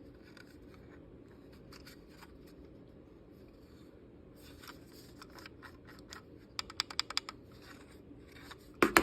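Faint handling of small plastic items and packaging: light rustles and scrapes, then a quick run of sharp clicks about seven seconds in and one louder click just before the end.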